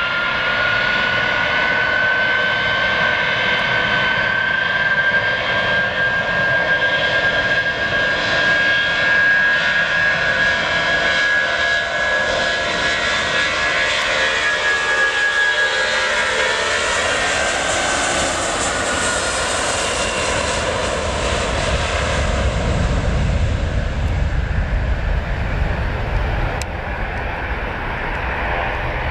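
Boeing 757 jet engines spooling up to takeoff power: a whine rises in pitch at the start, holds steady and high, then fades. A deep low rumble from the engines grows stronger near the end as the airliner accelerates down the runway.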